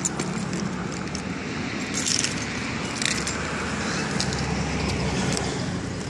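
Keys jangling, with a few short clicks, over a steady low hum.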